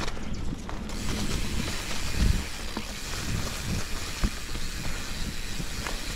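Mountain bike ridden along a leaf-covered forest singletrack: tyres rolling over the dirt, with the bike's mechanical rattle and scattered clicks, and a couple of low thumps over bumps in the trail.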